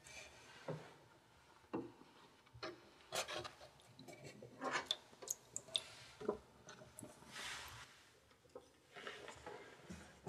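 Irregular handling sounds: scattered small clicks and knocks with brief rubbing and scraping, and a longer rustling rub about seven seconds in.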